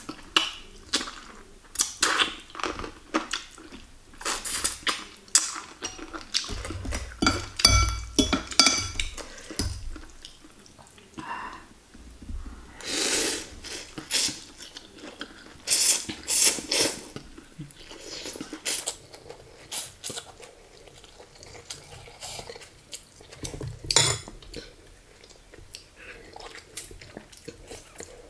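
Metal spoon and fork clinking and scraping against a ceramic soup bowl during eating, with a ringing clink cluster about a third of the way in. Noodles are slurped up from the bowl partway through, with chewing and lip-smacking between.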